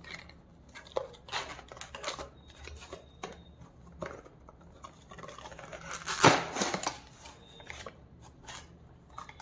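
Cardboard product box being handled and opened by hand: scattered light clicks, taps and rustles of the card, with one louder scrape as the box is pulled open about six seconds in.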